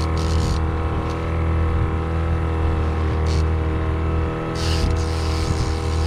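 Boat engine running steadily with a deep, even hum, with a hiss that rises and falls over it.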